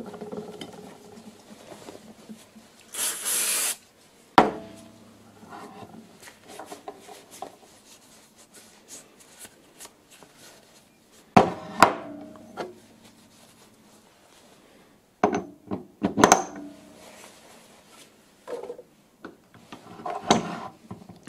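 Metal tooling handled on a tabletop: an 80 mm shell face mill, its MT3 arbor and draw bolt picked up, set down and fitted together, giving scattered sharp clinks and knocks with rubbing and scraping between them. A short hiss lasting under a second about three seconds in.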